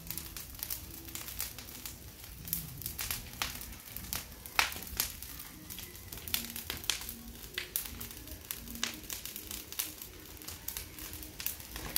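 Open fire of dry grass, leaves and bamboo sticks crackling, with many sharp irregular pops. Faint low music notes run underneath.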